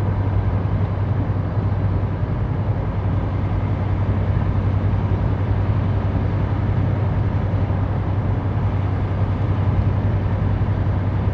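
Semi truck's diesel engine running steadily at low road speed, a constant low drone under even road and cab noise, heard from inside the cab.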